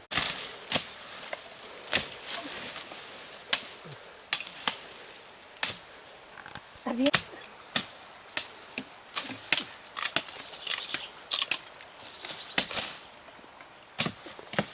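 Machete chopping at tree branches: a quick, uneven series of sharp strikes, roughly one or two a second.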